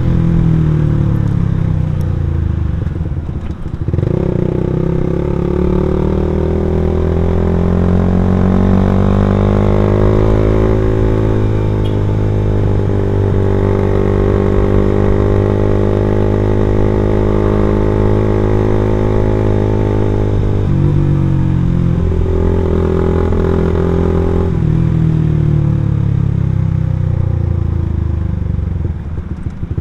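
Suzuki Satria F150 fuel-injected single-cylinder engine breathing through an aftermarket R9 racing exhaust, heard onboard while riding. The revs fall at first, climb steadily, and hold for about ten seconds. They drop sharply about twenty seconds in, pick up again, and wind down near the end.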